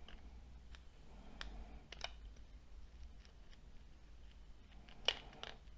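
Faint, scattered clicks and taps from small plastic parts of a Nokia C6-00 smartphone being handled and pried during disassembly, the loudest about five seconds in.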